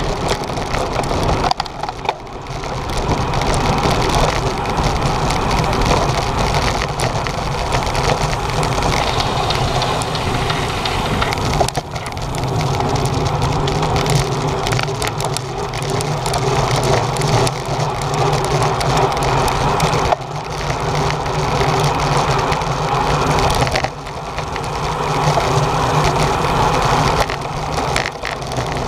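Wind rushing over the microphone of an action camera on a racing bicycle moving at speed in a pack: a loud, steady rush of noise that drops briefly a few times.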